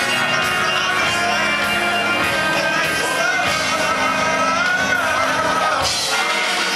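Live rock and soul band playing loudly, with a singer's voice carrying a held, wavering line in the middle, heard from the back of a large club room.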